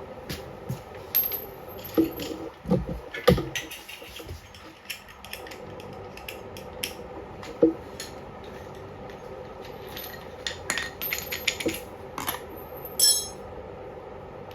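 Scattered metallic clinks and knocks of hand tools and pieces of steel being handled and set down, over a steady background hum.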